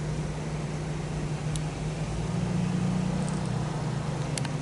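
Steady low mechanical hum that swells slightly in the middle, with a few faint ticks near the end.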